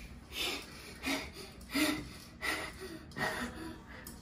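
A person's soft breathy puffs, like gasps or breaths, about six short ones spaced roughly two-thirds of a second apart.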